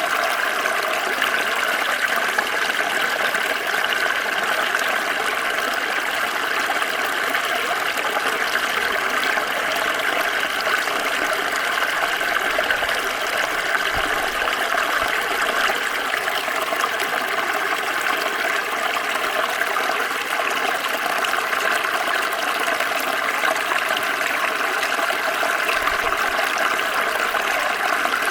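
Small stream flowing steadily over stones, a continuous rushing and trickling of water.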